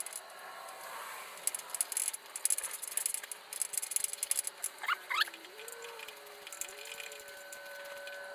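Small metal parts and hand tools clicking and rattling in irregular bursts while motorcycle parts are handled, with a brief squeaky, wavering sound about five seconds in.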